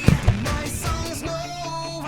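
Music with guitar, with two heavy low thumps near the start.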